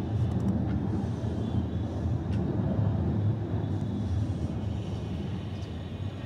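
Jet airliner passing high overhead: a steady low rumble.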